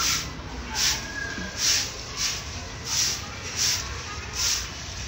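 A bundle broom of thin stiff bristles sweeping a rough concrete floor in short, brisk strokes: a swish a little under once a second, six or seven in all.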